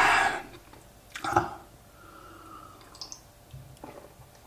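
Wet mouth sounds of someone tasting a drink: a loud sip right at the start, a shorter one just over a second in, then a few faint lip clicks.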